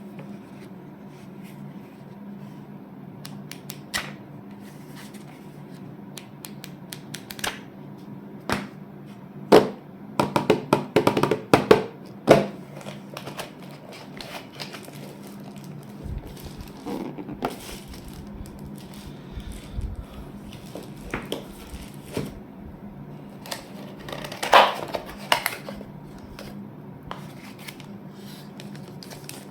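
Unboxing handling sounds: scattered clicks, taps and rustles as the keyboard and its packaging are handled, with a quick run of clicks about ten seconds in and another burst near the end.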